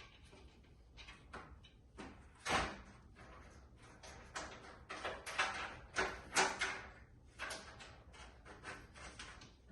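Irregular knocks, clicks and scraping clatter of PC case parts being handled and taken off, with the loudest knock about two and a half seconds in and a busier run of clatter between about five and seven seconds.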